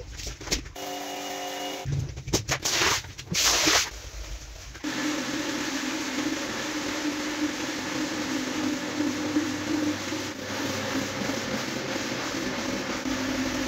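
A single-disc rotary floor scrubber runs with a steady motor hum while its brush scrubs a wet, soapy rug, starting about five seconds in. Before that come a few short, loud, uneven noises as the wet rug is handled.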